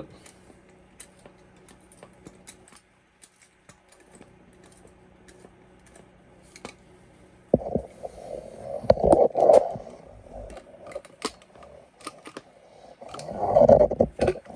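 Light, irregular clicking of a socket wrench snugging up the stock bolt of a Remington 870 shotgun. Louder knocks and clatter from the tool and gun being handled on the workbench come about halfway through and again near the end.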